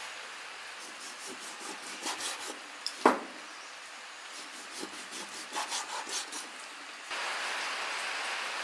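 Kitchen knife slicing through raw pork belly on a wooden cutting board: clusters of short cutting strokes and knocks of the blade on the board, the sharpest knock about three seconds in. Near the end a steady hiss takes over.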